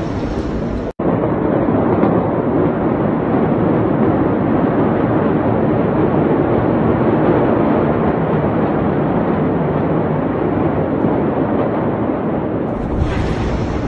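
Loud, steady rumbling noise, cut off for a moment about a second in.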